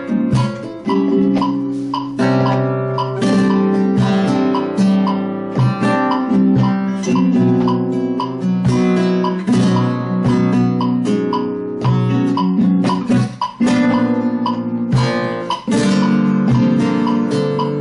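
Solo flamenco guitar playing soleá por bulería, mixing strummed chords with sharp attacks and plucked single notes.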